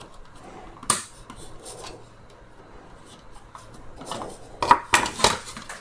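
Needle-nose pliers scraping and clicking against the plastic of a Dyson V10 handle housing while working wires off a connector. There is a sharp click about a second in, then faint scraping, then a cluster of louder clicks and scrapes near the end.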